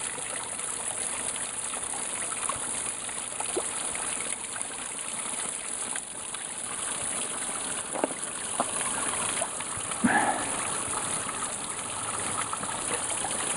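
Steady rush of water falling and splashing at a partly frozen waterfall, with a few short knocks about eight and ten seconds in.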